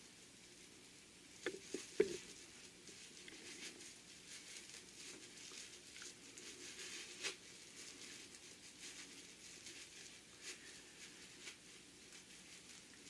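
Faint scratchy rustling and rubbing of a fabric strap layered with Insul-Bright as it is turned right side out and its ends pushed out with a wooden poking tool, with a few light knocks about one and a half to two seconds in and one more a few seconds later.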